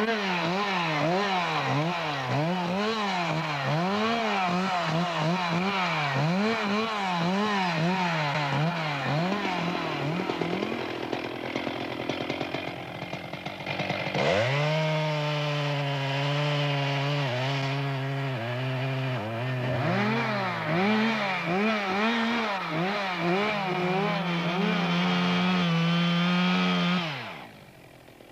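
Two-stroke chainsaw running hard and cutting wood, its pitch swinging up and down about once a second as the throttle is worked and the chain bites. The sound drops back for a few seconds around the middle, returns sharply, holds a steadier high pitch under the cut, and stops near the end.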